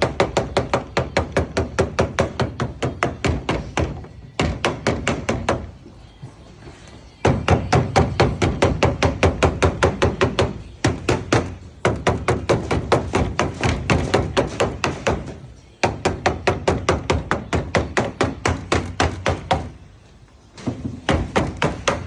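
Code 8 sheet lead being tapped up into a pig's ear corner with a hand lead-dressing tool: quick, even taps about five a second, in runs broken by short pauses.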